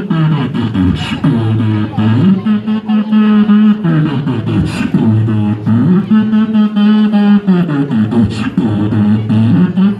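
Beatboxer performing into a microphone through a PA system: long held bass hums that step in pitch, mixed with quick vocal drum sounds and a sharp snare-like hit about every four seconds.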